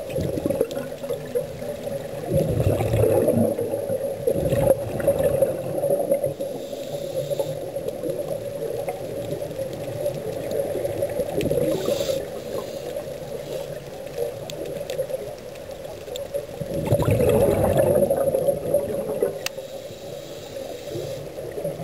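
Scuba regulator breathing heard underwater: exhaled bubbles gurgle out in long swells, loudest about two seconds in and again about seventeen seconds in, with fainter hissing between breaths over a steady hum.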